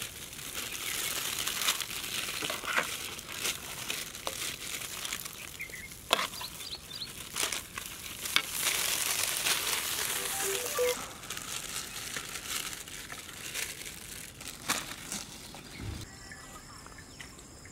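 Aluminium foil pouches crinkling and rustling as the mutton roast is spooned into them, with sharp clicks of a metal spoon against the steel platter. The crinkling dies down to a quieter rustle in the last few seconds.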